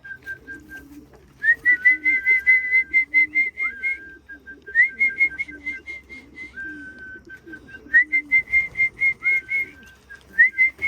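Repeated whistled phrases, each a rising note followed by a quick run of high pips at about six a second, coming in bouts of two to three seconds with short gaps. Pigeons cooing softly underneath.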